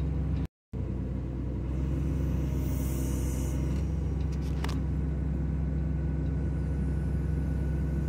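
John Deere 2054D excavator's diesel engine running steadily, heard from inside the cab, while the upper structure swings on its newly replaced swing motor. The sound cuts out completely for a moment about half a second in.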